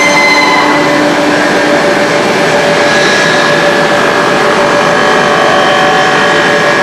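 Steady running noise of an HDPE pipe extrusion line's machinery: a dense, even din with several whining tones held over it, one of them slowly sinking in pitch.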